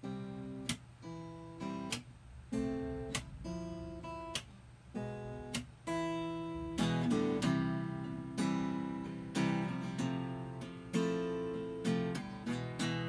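Acoustic guitar being strummed, a chord intro with sharp strokes over ringing chords. About seven seconds in the strumming gets louder and fuller.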